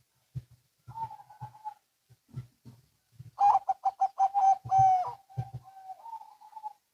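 Zebra doves (perkutut) singing: soft coo notes at first, then about halfway through a loud run of rapid staccato notes that ends in a long held coo.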